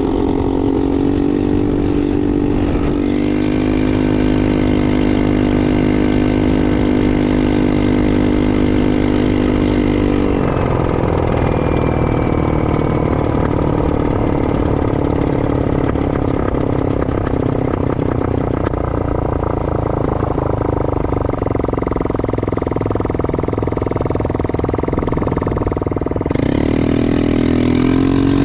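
Four-wheeler (ATV) engine running under way, loud and steady, its pitch stepping up slightly a few seconds in. About ten seconds in the engine note turns rougher and less even, and the steady tone comes back near the end.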